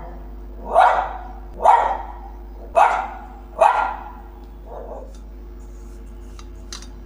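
A dog barking: four loud barks about a second apart, then a fainter one about five seconds in.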